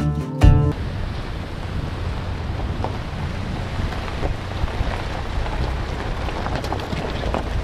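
Guitar music cuts off under a second in, followed by the steady rumbling noise of an off-road vehicle driving over a rough gravel and rock road, tyres rolling over stones with a few small knocks and wind buffeting the outside-mounted microphone.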